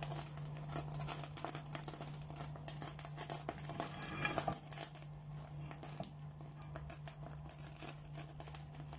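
Cooking oil sizzling and crackling with many small pops in a preheated nonstick frying pan, just after being poured in. A steady low hum runs underneath.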